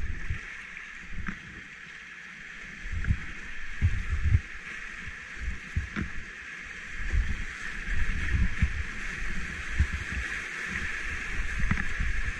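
Class II/III creek rapids rushing past a kayak, a steady hiss of whitewater with irregular low thumps every second or so.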